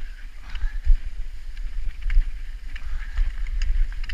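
Cross-country skis sliding over packed snow with a few scattered clicks of ski poles being planted. A steady low rumble of wind on the microphone lies under it.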